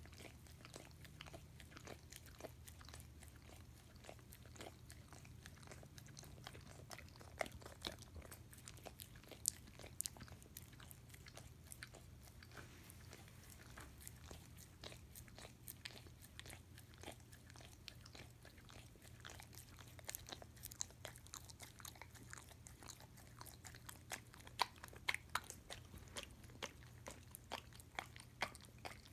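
A dog licking and smacking peanut butter off a metal spoon: a steady run of quick, faint wet clicks and smacks, with a few louder ones.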